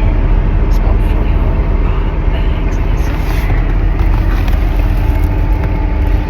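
A motor vehicle on the move: steady engine and road noise.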